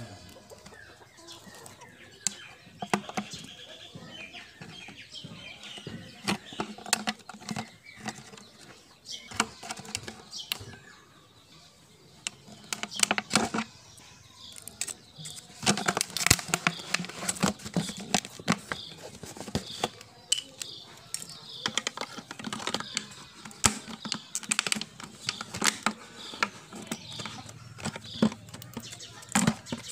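Thin plastic drink bottles being handled and worked by hand: irregular clicks, taps and crinkles of plastic, busier from about halfway through.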